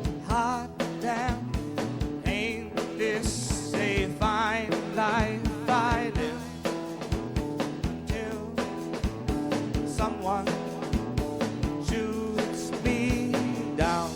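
A live rock band playing: a drum kit keeps a steady beat under guitar chords, with a wavering, bending lead melody over the top.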